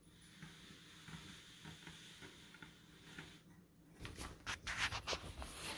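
Faint scraping and sliding with a few small ticks as a lubricated rubber motor of many strands is fed into a long fuselage tube, then, about four seconds in, a quick run of louder rustles and clicks of handling.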